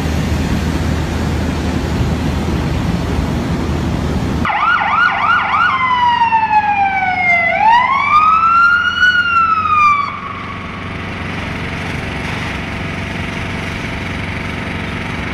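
An emergency vehicle siren cuts in about four seconds in. It gives a rapid yelp of about three warbles a second, then switches to a slow wail that falls, rises and falls again before stopping about ten seconds in. Before it there is a low steady rumble, and after it a steady background noise.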